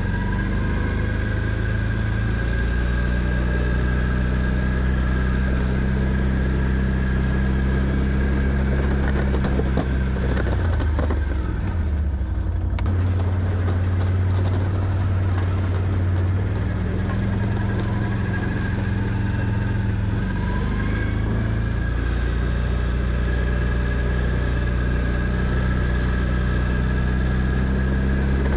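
Can-Am Outlander 650 ATV's V-twin engine running as it plows snow, its engine speed stepping up and down several times, with a steady high whine over it.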